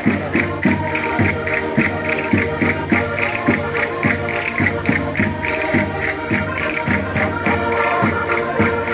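Concertinas playing a lively folk dance tune in held chords, over a steady beat of low strokes about twice a second and faster sharp percussive clicks.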